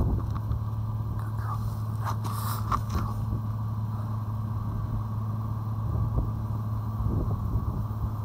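Vehicle engine idling with a steady low hum, with a few light clicks about two to three seconds in.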